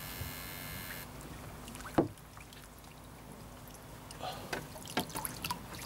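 A landing net being worked through pond water beside a plastic boat, with a sharp knock about two seconds in and a few lighter knocks and splashes near the end. Under it runs a faint steady hum, with a brief high buzz in the first second.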